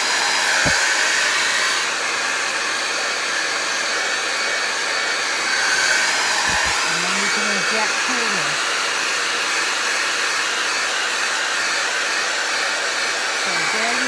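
Conair Cord-Keeper hand-held hair dryer running steadily, blowing air through its concentrator nozzle: an even, unbroken whooshing hiss.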